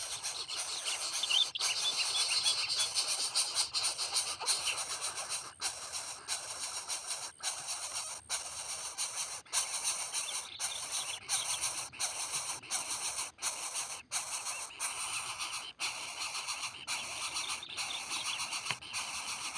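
Steady high-pitched outdoor background hiss, broken by brief dropouts about once a second, with a few faint bird chirps about a second in.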